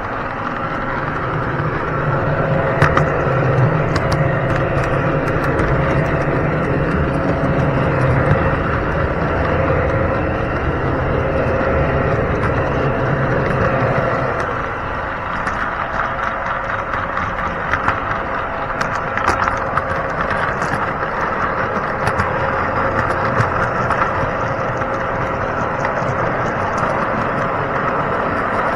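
Large O scale model train running on its track, heard from a car in the train: a steady rolling rumble and hum with scattered sharp clicks. The low part of the hum eases off about halfway through.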